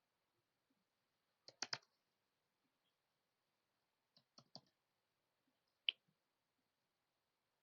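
Faint clicks from computer mouse and keyboard work during CAD layout: a quick run of about four clicks about a second and a half in, another run of about four around four seconds in, then a single sharper click near six seconds, with near silence between.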